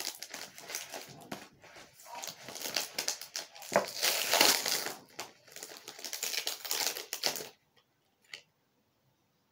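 Paper trading cards being shuffled and handled, with the crinkle of foil pack wrappers: a run of quick clicks and rustles, loudest about four seconds in, that stops shortly after seven seconds, followed by one small click.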